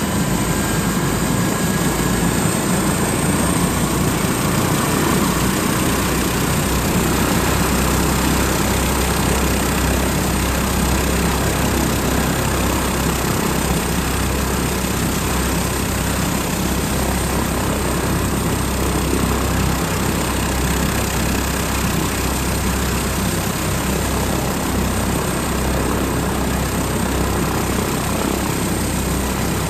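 Airbus H145 helicopter running on the ground with its main rotor turning, its twin turboshaft engines and rotor giving a loud, steady sound that holds level without rising or falling, ahead of lift-off.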